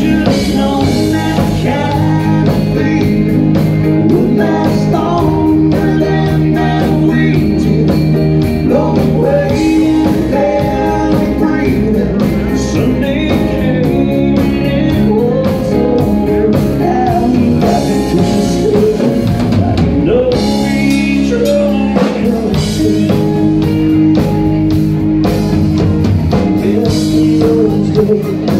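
Live rock band playing: electric guitar, bass guitar, drum kit and a Roland RD-800 stage piano, with a male lead singer.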